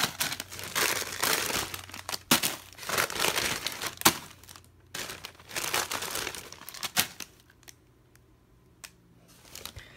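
Lay's potato chip bags crinkling as they are crammed into a soft suitcase, with several sharp crackles among the rustling. The crinkling dies away about seven seconds in.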